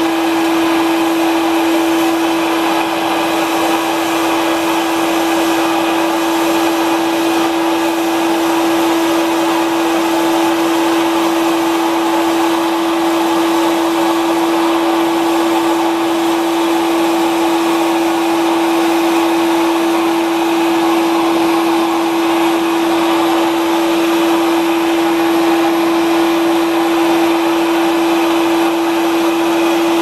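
1000 W Volta clean-air canister vacuum running with a Miele Electro Comfort power nozzle on carpet: a steady motor whine at one pitch over an even rush of air, unchanging throughout.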